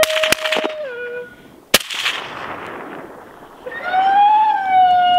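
Rifle shots: two sharp cracks right at the start and a third nearly two seconds in, the last trailing off in a rolling echo. Under them runs a long siren-like howl that falls away after the first second and returns near the end with a rising, then slowly falling note.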